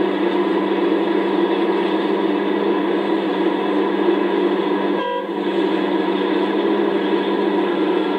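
Komatsu PC650-5 excavator's diesel engine running steadily under load while the bucket digs, a constant drone with several steady tones. The sound briefly drops out about five seconds in.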